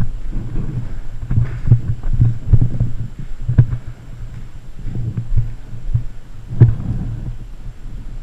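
Irregular muffled low thumps and rubbing from a camera worn by a moving player: footsteps and gear knocking against the mic. Sharp clicks come about two, three and a half and six and a half seconds in.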